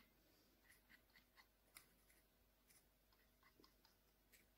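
Near silence: room tone with a few faint, scattered light ticks.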